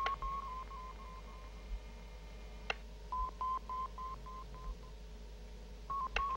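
Push-buttons on an electronic control console clicking three times, each press followed by a run of short electronic beeps at one pitch, about three a second, over a faint steady electronic hum.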